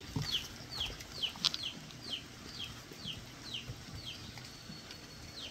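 Baby chicks peeping: a steady string of short, high, falling peeps, about two a second. A single sharp click about a second and a half in.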